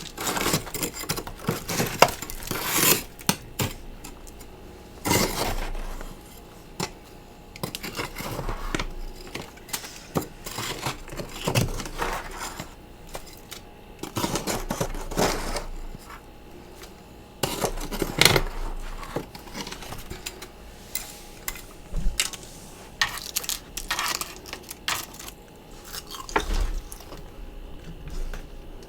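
Freezer frost crunched close to the microphone, in irregular bursts of crisp crunches and clinks with short pauses between them.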